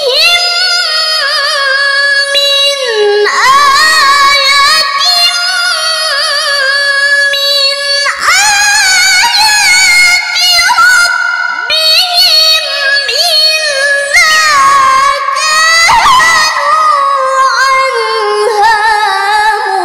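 A young woman's solo Quran recitation (tilawah) in a high voice, drawn out into long, ornamented melodic phrases with wavering pitch. Brief breaths separate the phrases about 3, 8 and 14 seconds in.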